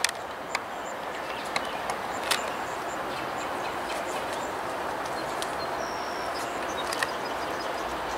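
Outdoor ambience: a steady hiss with scattered short bird chirps and ticks, and one brief high whistled bird note about six seconds in.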